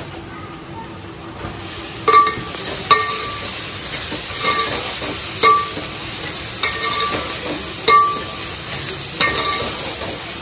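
Chopped onions frying in oil in a metal pot with a steady sizzle. A steel ladle stirs them, clinking against the pot with a short ring about once a second.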